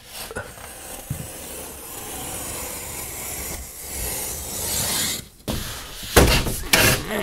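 Utility knife scoring the back paper of a sheet of drywall along a metal T-square, a steady scraping rasp for about five seconds. Near the end come a few knocks as the sheet is pushed on.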